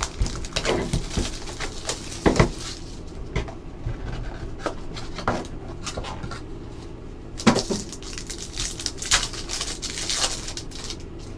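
Hands opening a trading-card box and handling a foil-wrapped card pack: scattered clicks and taps of cardboard, with crinkling of the foil wrapper a few times in the second half.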